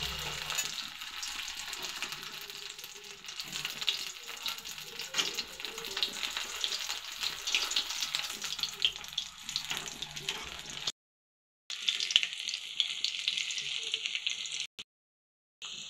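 Hot oil sizzling and crackling in an aluminium kadhai as squares of steamed rice-flour dough are shallow-fried. It is a steady crackling hiss that cuts out abruptly to silence twice in the second half.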